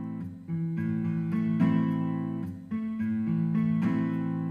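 Background music: strummed acoustic guitar chords, changing about every second.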